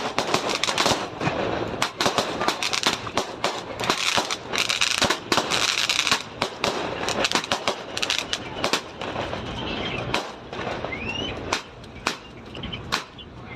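Strings of firecrackers going off in rapid, irregular runs of sharp pops and bangs, thinning out briefly near the end before picking up again.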